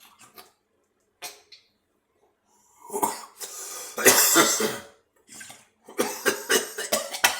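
A person coughing hard after taking in smoke: a few faint sounds, then from about three seconds in a string of loud, harsh coughs, with a quick run of them near the end.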